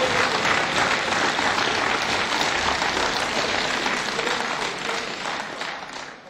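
Crowd applauding, dense and steady clapping that fades away over the last second or so.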